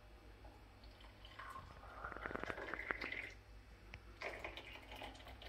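Hot water poured from the lower kettle of a Turkish double teapot into a small glass tea glass, the pouring note rising in pitch as the glass fills, for about two seconds from a second and a half in, then a brief second pour just after four seconds in. Faint.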